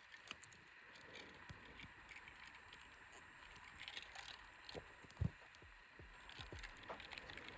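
Near silence: faint steady hiss with scattered soft clicks and a few low knocks, the clearest about five seconds in.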